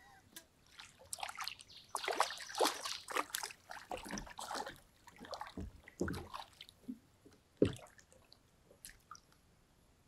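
Water splashing and sloshing in irregular bursts as a hooked smallmouth bass thrashes at the surface while it is being landed. A single sharp thump comes about three quarters of the way through.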